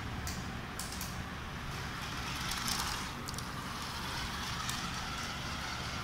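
Small electric motor of a toy remote-control car whirring, swelling from about halfway through, with a few sharp clicks.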